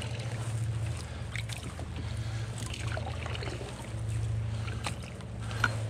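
Water splashing and rushing around a canoe on a fast, high river, with scattered short splashes over a steady low rumble.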